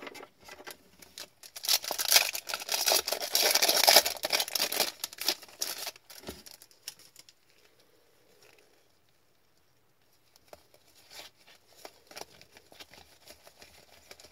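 Hockey card pack wrapper crinkling loudly for several seconds as the torn pack is pulled open and the cards slid out. Near the end, soft ticks and slides of the cards being flipped through in the hands.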